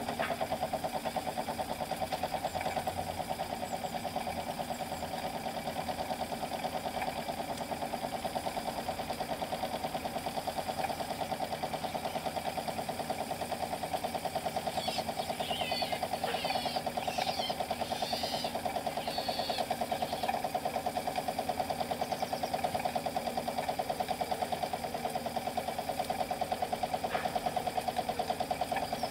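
Handmade model saddle steam engine running steadily, with a rapid, even mechanical beat.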